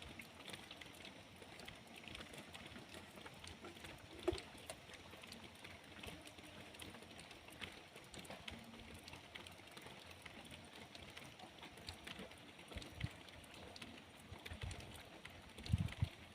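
Light rain falling, with scattered drops ticking. There is a louder knock about four seconds in and a few dull thumps near the end.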